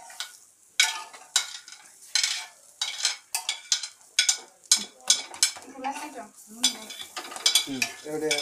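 Metal spatula scraping and clicking against a flat griddle (tawa) in quick, irregular strokes as halved pav buns toast in butter, with a light sizzle underneath.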